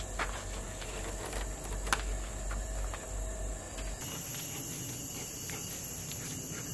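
Insects shrilling in a steady high-pitched drone, with several sharp light clicks and knocks in the first half.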